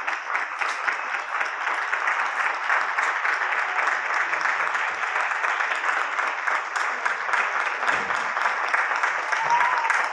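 Sustained applause from many people clapping on the balconies of the surrounding apartment blocks, the collective lockdown balcony applause, steady throughout.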